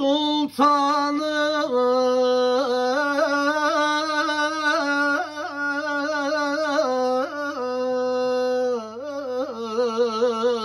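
A solo male voice singing an ilahi, a Turkish Sufi hymn, holding one long, richly ornamented melismatic line without clear words, full of turns and slides, with a quick trill-like wavering near the end.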